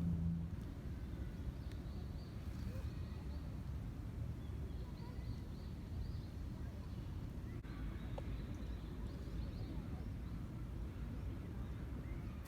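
Outdoor ambience: a steady low rumble of background noise with a few faint, short high chirps now and then.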